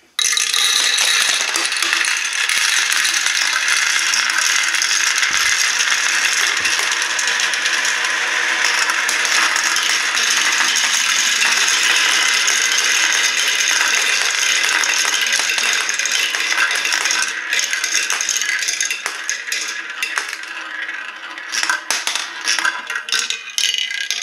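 Dozens of small balls rattling and clattering together through a Kumon Kumi Kumi Slope plastic marble run's funnels and chutes in one dense, continuous stream. After about 17 seconds it thins out into separate clicks and rattles as the last balls run down the rails into a bucket.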